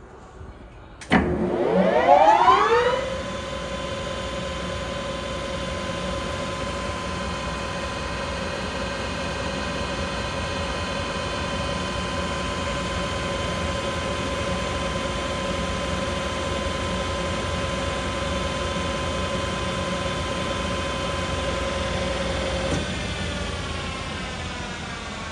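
Mori Seiki MS-2000G engine lathe's spindle drive starting suddenly about a second in, its gear whine rising in pitch for about two seconds as it spins up. It then runs at a steady speed, and near the end the whine falls in pitch as the spindle winds down.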